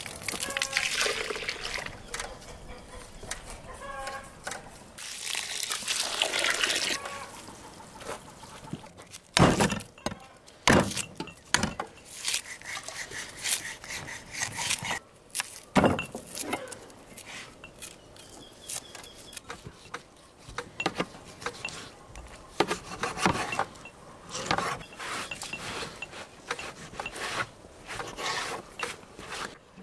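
Hot water scooped with a metal ladle from a big steaming cooking pot and poured back in, splashing, twice. Then a series of sharp knocks and thuds, with softer clatter after, as beef leg meat is handled and cut with a knife on a wooden board.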